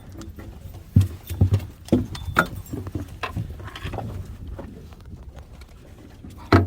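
Irregular knocks and thumps on a fishing boat, about half a dozen uneven strikes, the loudest about a second in and one near the end.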